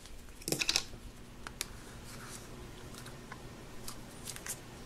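Faint handling noise of a plastic Play-Doh tub: a short cluster of clicks and rustles about half a second in, then a few scattered light ticks as the dough is pulled out of the tub.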